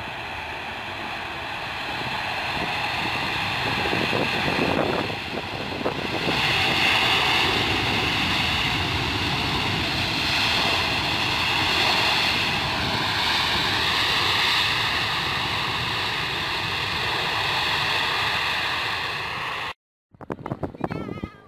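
Boeing 747-8F's four GEnx turbofan engines running at high power as the jet rolls along the runway: a loud jet roar with steady whining tones. It grows louder over the first several seconds, the whine shifts in pitch around the middle, and the sound cuts off abruptly near the end.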